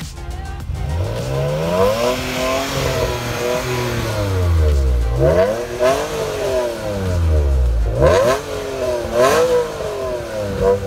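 Alfa Romeo 156's 24-valve V6 (the Busso V6) revved three times while standing still. Each rev climbs in pitch and then falls back low; the first is slower and the next two are quicker.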